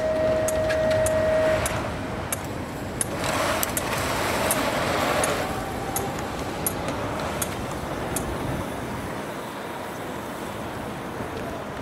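BMX start gate's electronic tone, a long steady beep through the first second and a half that signals the gate dropping, followed by outdoor race noise with a swell of hiss a few seconds in and scattered sharp ticks.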